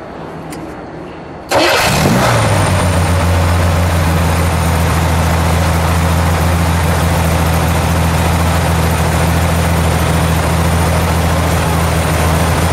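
1966 Yenko Stinger Corvair's air-cooled flat-six, fitted with headers, starting about a second and a half in: it catches at once with a quick flare that drops in pitch, then settles into a steady idle.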